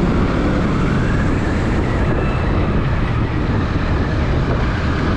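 Motorbike on the move: a steady engine and heavy wind rushing over the rider's microphone.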